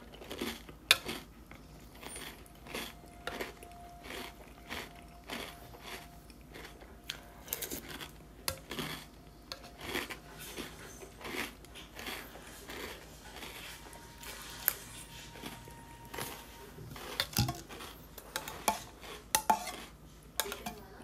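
Cereal being chewed with the mouth closed, a run of small crunches, with a metal spoon now and then clicking and scraping against the bowl, more often near the end.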